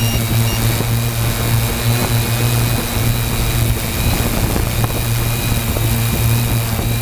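Electric motors and 15-inch propellers of a 3DR Y6 coaxial multirotor running steadily in flight, heard from the camera it carries: a steady low drone with a thin high whine over a constant hiss.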